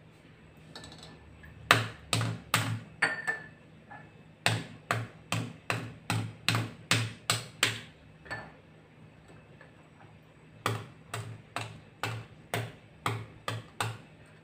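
Boiled egg tapped against a ceramic tile countertop to crack its shell for peeling: a run of sharp taps at about two a second, in three bursts with short pauses between them.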